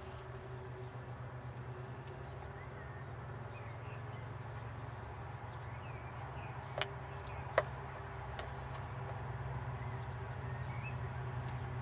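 A steady low hum like a distant motor, with a fine rapid flutter, and two sharp clicks under a second apart a little past the middle; a few faint high chirps.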